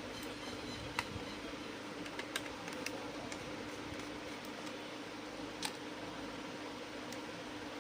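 A few light, sharp clicks and taps, four or so scattered through, over a steady hum and hiss.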